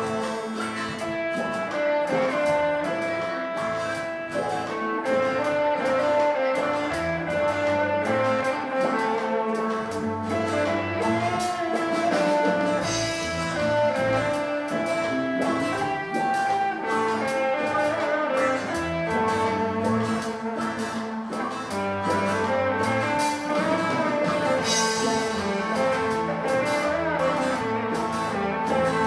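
Live rock band playing an instrumental passage on electric and acoustic guitars, bass guitar and drum kit, with a steady drum beat.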